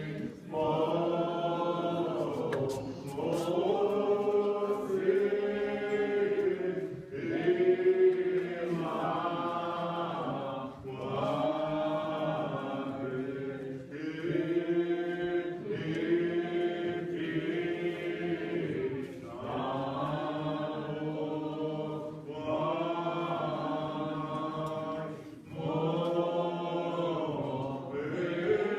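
A congregation singing a hymn in the Muscogee (Creek) language, sung in phrases of a few seconds with short breaks between them.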